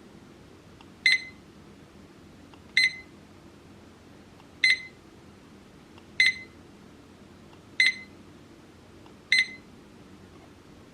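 Digital weather clock's beeper sounding six short, high single beeps, roughly every second and a half.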